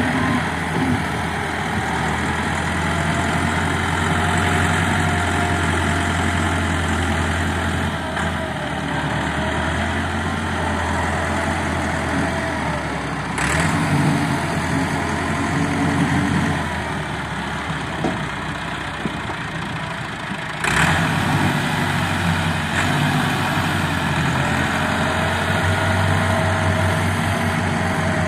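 Diesel tractor engines running: the front-loader tractor's engine rises and falls in speed as it works the loader on earth, over a steady idle. Two sudden sharp sounds, one near the middle and one about two-thirds through.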